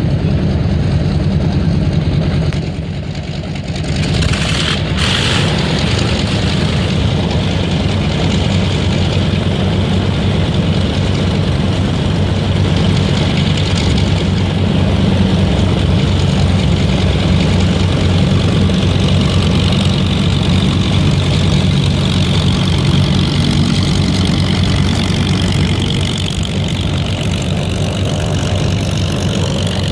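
Large WWII-era piston aircraft engine running steadily at a low idle. About three seconds in it dips briefly, then a short burst of noise follows before it settles back to an even run.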